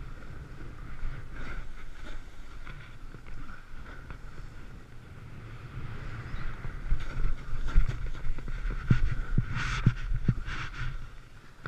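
Snowboard riding over snow, with its base and edges scraping and wind buffeting the camera microphone as a steady low rumble. From about two-thirds of the way through, the ride gets rougher, with sharp knocks and two loud scrapes near the end.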